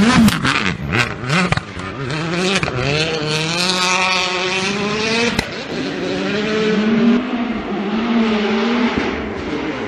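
World Rally Car's turbocharged 1.6-litre four-cylinder engine driven hard: a rapid string of cracks and pops in the first second and a half, then the revs climb steadily to a sharp crack at the gear change about five seconds in, after which the engine note dips and rises again.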